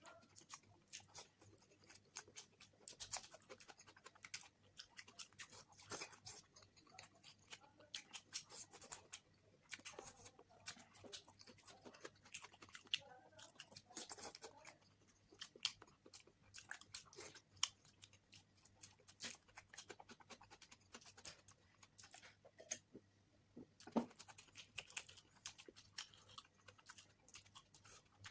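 A person chewing spicy eggs, with many small irregular mouth clicks and smacks.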